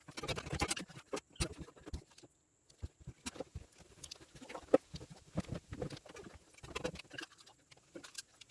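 Irregular clicks, taps and scraping rustles of parts being handled and pushed into place by hand, with one sharper knock about halfway through.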